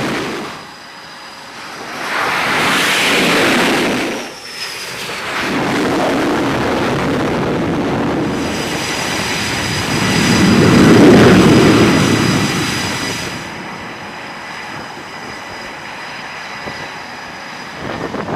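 Jet aircraft noise swelling and fading as planes pass, loudest about ten to twelve seconds in, with a steady high whine in the later part.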